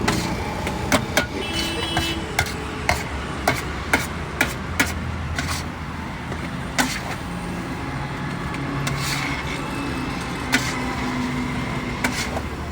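Metal spatula clanking against a large iron tawa as tawa pulao is stirred and tossed. The sharp clinks come about twice a second for the first five seconds, then at scattered intervals, over a steady low background hum.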